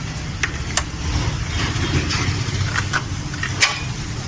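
Several sharp metallic clicks and clinks from handling tools and engine parts in an opened-up engine bay, over a steady low background hum.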